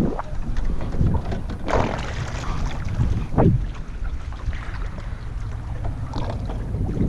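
Wind buffeting the action camera's microphone as a steady low rumble, with water lapping against the kayak's hull in a few brief swishes, the clearest about two seconds in and again about a second and a half later.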